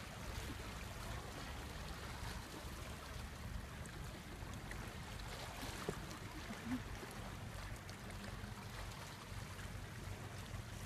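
Small waves lapping and trickling against shoreline rocks over a low steady hum, with two brief knocks about six seconds in.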